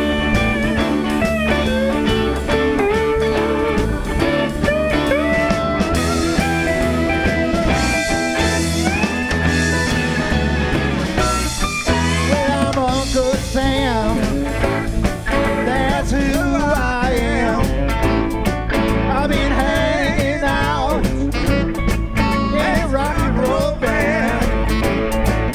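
Live blues-rock band playing: electric guitars, bass guitar and drum kit, with a man singing.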